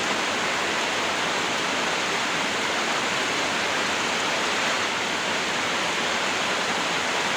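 Heavy rain pouring down in a storm, a steady even hiss with no let-up.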